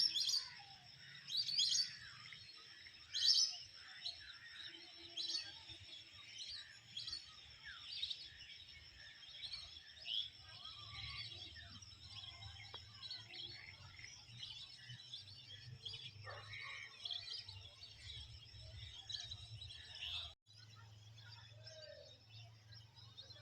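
Wild birds chirping and calling in many short notes, loudest in the first few seconds, over a steady high-pitched background tone and a low hum. The sound drops out for a moment about twenty seconds in.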